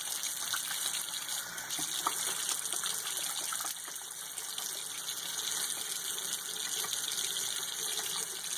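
A kitchen faucet running steadily, with a few small splashes as hands work a bar of soap into a lather under the water.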